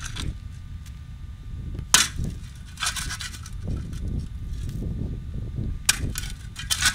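A wooden-handled digging tool striking hard ground. There are sharp impacts about two seconds in and two more close together near the end, over a steady low rumble.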